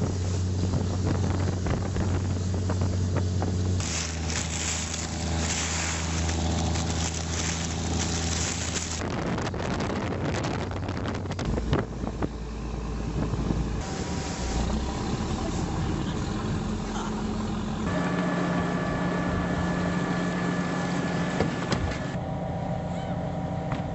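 A fishing boat's engine running steadily, with wind and water noise. The engine note and the noise level change abruptly several times.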